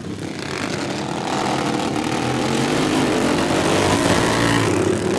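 Several racing lawn mowers running at speed, their small engines overlapping. The sound swells over the first couple of seconds as the pack comes closer, then stays steady.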